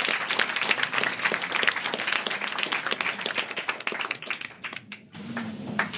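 Small audience applauding, dense clapping that thins out and dies away about five seconds in.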